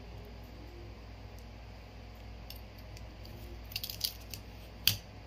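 Small clicks and taps of a phone's parts and flex cable being handled and pried loose from its mid-frame, a short cluster of light clicks about four seconds in and one sharper click near the end, over a steady low hum.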